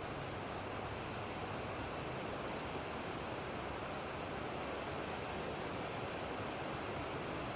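Steady rain, an even hiss with no thunderclap.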